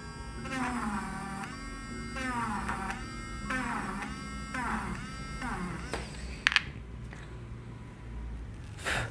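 Brustro battery eraser's small motor whining, its pitch sagging and recovering about six times as the spinning eraser tip is pressed in repeated strokes across graphite shading. Two short clicks about six and a half seconds in.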